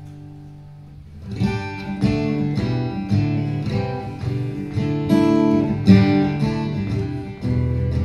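Acoustic guitar strumming the instrumental introduction to a folk song. A chord rings and fades, then steady rhythmic strumming starts about a second in.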